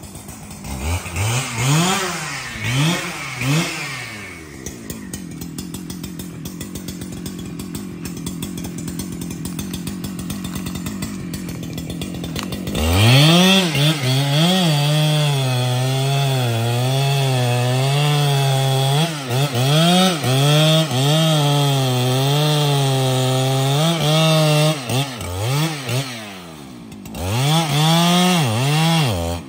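Husqvarna 395XP chainsaw, a large two-stroke: it is revved a few times, idles steadily, then runs at high revs cutting into a tree trunk, its pitch dipping and recovering over and over as the chain bites into the wood. Near the end it drops briefly to idle and is revved back up.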